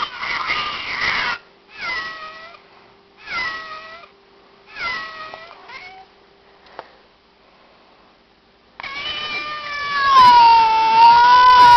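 Cat meows: a cry that cuts off just over a second in, then three short meows about a second and a half apart, and after a pause a long, loud yowl that falls in pitch and then holds.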